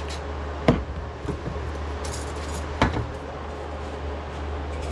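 Two sharp knocks about two seconds apart as a cordless impact driver and a band-clamped wooden ring are handled and set down on a workbench, over a steady low hum.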